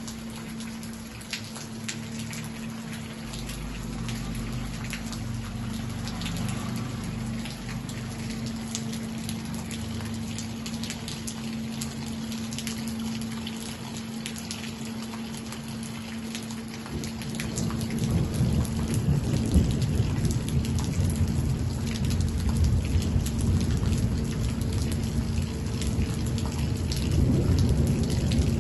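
Rain falling, with many fine drop ticks over a steady patter. About two-thirds of the way through a heavy low rumble comes in and the whole sound grows louder. A faint steady hum sits underneath.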